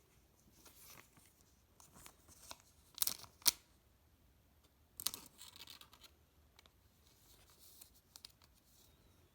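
Football card pack wrapper being torn open and crinkled, with a few short, sharp rips.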